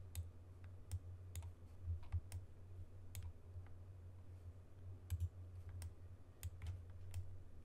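Sparse, irregular clicks from a computer keyboard and mouse, about a dozen in all, with a small cluster around five seconds in, over a steady low hum.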